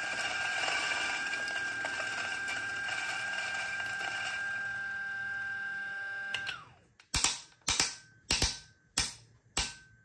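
Timemore Sculptor 078S flat-burr coffee grinder running with a steady whine as it grinds beans, switched off about six and a half seconds in and spinning down with a falling pitch. Then five sharp knocks, about half a second apart.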